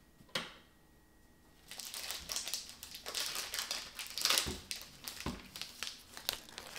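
A wall light switch clicks once. About two seconds in, the paper wrapper of a Trader Joe's Pound Plus chocolate bar is torn and pulled open, a dense, irregular crinkling and tearing of paper that runs on to the end.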